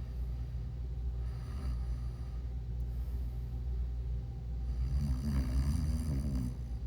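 A person snoring in sleep: two snoring breaths, a weaker one about a second in and a louder one about five seconds in, over a steady low rumble.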